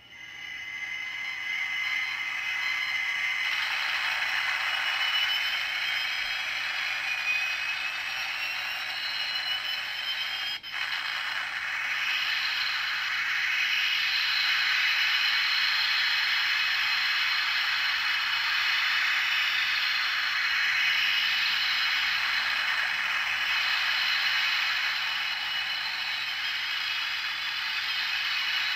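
The Space: 1999 Eagle Transporter's engine lift-off sound effect, taken from the TV show and played through a small speaker on a sound board. It is a steady hissing engine rush with no bass, and the pitch rises over the first few seconds. It drops out briefly about ten and a half seconds in.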